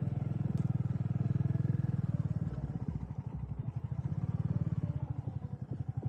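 Motorcycle engine running at low speed as the bike is ridden, with a rapid steady train of exhaust pulses. The engine is louder for the first couple of seconds, then eases off a little.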